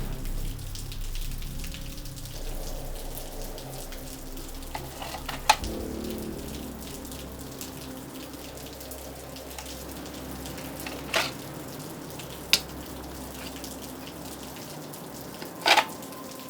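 Plastic View-Master reel lever clicking four times, two of the clicks a little longer, over a low steady drone and a faint watery hiss.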